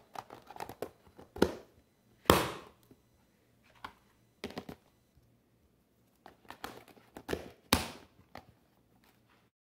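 Plastic food-storage containers of cut vegetables being handled: lifted, slid and set down on a plastic cutting board and counter, giving a string of knocks and clatters, the loudest about two seconds in and near the end.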